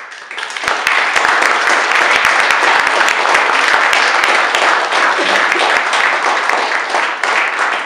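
Many people applauding: dense, steady clapping that rises to full strength within about a second and holds there.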